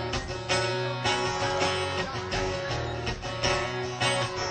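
Live acoustic guitar strumming the instrumental intro of a song, with chord strokes about twice a second over sustained low notes.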